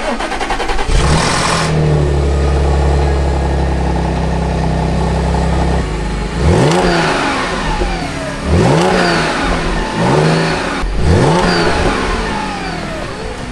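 Audi S5's supercharged 3.0 V6 on the stock exhaust and downpipes, running steadily at first, then blipped up and back down four times.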